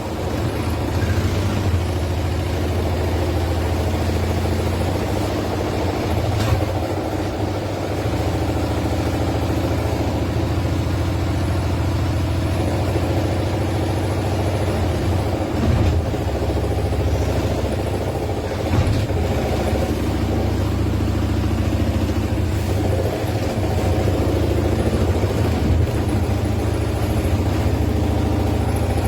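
A machine running with a steady low hum, with a few faint knocks along the way.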